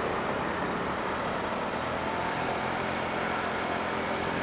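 Motor scooter engine running as it approaches, its steady hum growing clearer from about halfway in, over a constant background hiss.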